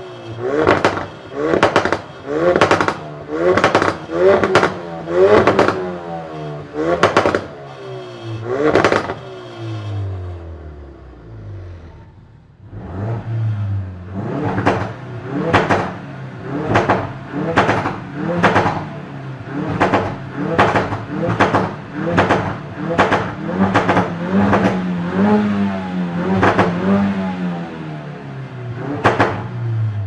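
2016 Ford Focus RS's turbocharged 2.3-litre four-cylinder engine revved repeatedly while standing still, in quick blips about once a second, each rising and falling in pitch. It drops back briefly about ten seconds in, and a few revs near the end are held longer.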